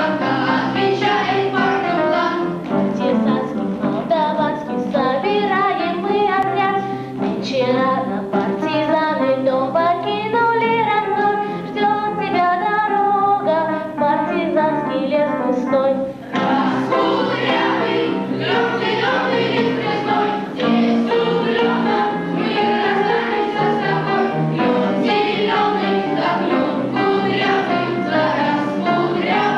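Children singing a song, with boys' voices and a girl's voice singing into a microphone, over steady accompaniment. There is a short break and a fresh entry about halfway through.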